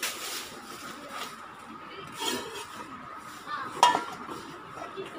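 Metal cookware clinking and knocking as pots and pans are handled, with one sharp metallic clink a little before the end.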